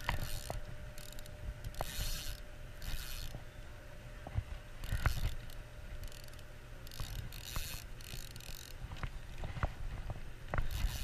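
Spinning reel being cranked to retrieve a jig: the rotor and gears whir in short spells of about half a second, over and over with short pauses, with a few light clicks. A steady low rumble runs underneath.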